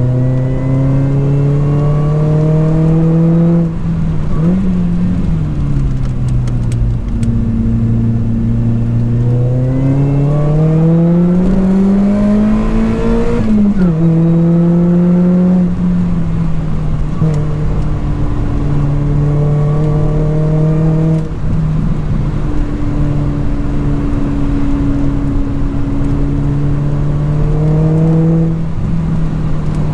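Lotus Elise 220 Sport's supercharged 1.8-litre four-cylinder running through a 2bular H1 exhaust silencer under hard driving. The engine note climbs under acceleration, drops sharply at gear changes, and settles and falls again as the car slows.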